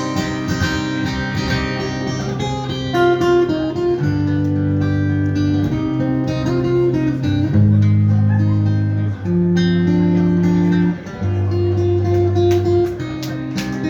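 Live band playing the instrumental ending of a song: strummed acoustic guitar over held low notes that change every second or two.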